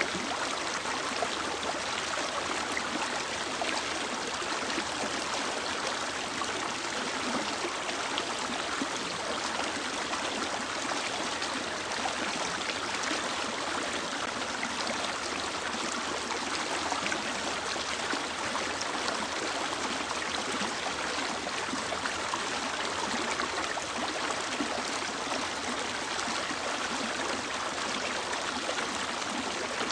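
Mountain stream running steadily over rocks: a constant rushing of water.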